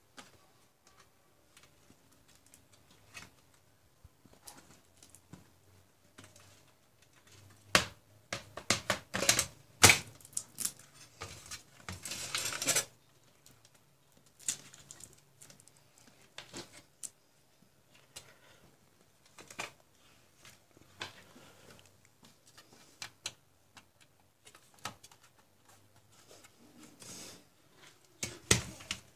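Scattered clicks, taps and clatter from hands working on an HP 1740 LCD monitor's sheet-metal panel chassis. About a quarter of the way in comes a busy run of sharp knocks and a scraping rustle, and near the end there are a few loud knocks as the panel is tipped up.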